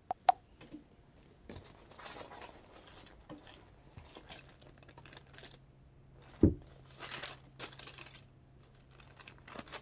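Faint rustling and crackling noise with two brief knocks, one just after the start and one about six and a half seconds in; a faint low hum joins about four seconds in.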